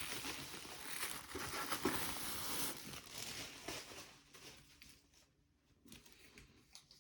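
Crinkling and rustling of packaging being handled and pulled open, dense for about four seconds, then dying away to a few faint rustles.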